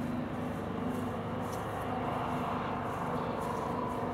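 Deltic locomotive D9009's twin Napier Deltic two-stroke diesel engines running under power as the train moves, a steady drone of many tones with a slight rising whine in the second half.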